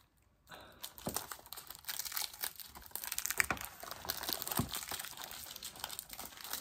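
Crinkly plastic wrapping being handled, a dense run of small irregular crackles and rustles starting about half a second in.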